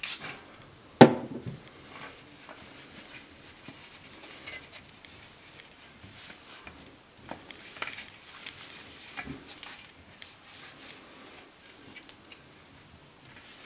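A last short spritz from a pump spray bottle, then a sharp knock about a second in. After that comes soft, scattered rubbing and dabbing of a cloth on a plastic football visor lens as the cleaning solution is wiped dry, with a few small taps.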